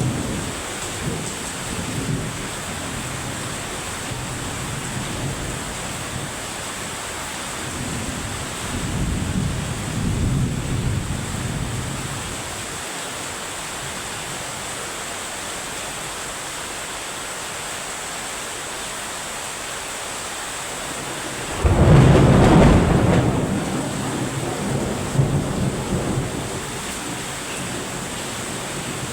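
Heavy rain falling steadily, with low rumbles of thunder and one loud thunderclap about two-thirds of the way through that fades over a couple of seconds.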